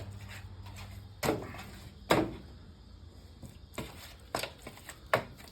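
A steady low hum cuts off about a second in. Then come five sharp knocks and clicks spread through the rest, the loudest about two seconds in, which fits kitchen items being handled.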